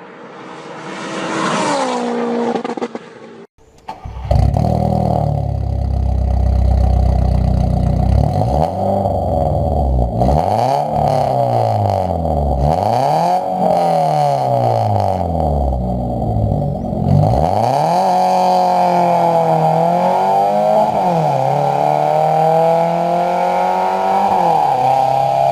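VW Gol G4's 1.0 four-cylinder engine through a straight-through exhaust with no muffler or catalytic converter, loud and raspy. It is revved again and again, the pitch climbing and falling, then settles into smaller rises and dips. A short sound with a falling pitch opens and stops abruptly a few seconds in.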